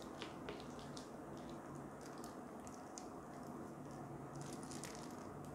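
Quiet room tone with a steady low hum and faint, scattered small clicks and ticks, clustered in the first second or so and again near the end.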